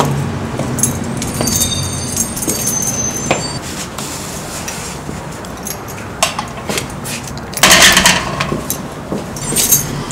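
Keys jingling and clinking as a key works the lock of a metal gate, with a louder metallic rattle about eight seconds in.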